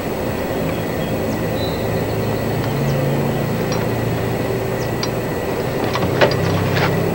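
Hand tools clinking a few times on metal in a car's engine bay, the sharpest clink a little after six seconds in, over a steady low rumble.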